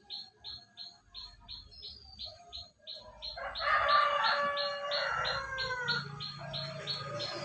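Local canary singing a fast, even run of repeated 'cuit' chip notes, about three a second. From about three seconds in, a lower, warbling bird call sounds over the chips for a couple of seconds.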